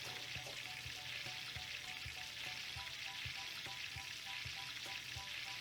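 Faint, steady sizzling hiss of a frying sound effect, like food in a hot pan, with soft ticks about twice a second.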